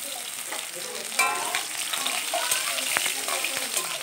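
Pointed gourds (patol) sizzling as they fry in hot oil in a kadai, with scattered clicks and scrapes of stirring. About a second in comes a short ringing clink, the loudest sound.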